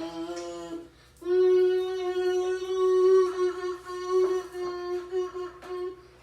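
Goal horn sounding: a blast that stops about a second in, then after a short gap one long steady blast of about five seconds.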